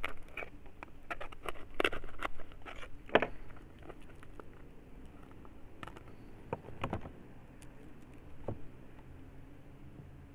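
Brittle, papery stingless-bee mixed wax (cerumen) being crumbled and broken apart by hand, giving a run of dry crackles and rustles. The crackles are dense for the first few seconds, then thin out to occasional snaps.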